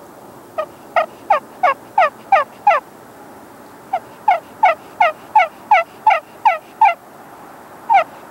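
Pro Game Calls "Tree Caller" slate-over-glass pot turkey call in walnut, played with a cedar striker: tree yelps, the soft calls of a hen turkey on the roost. Two runs of short yelps, each note dropping in pitch, about three a second, with a third run starting near the end.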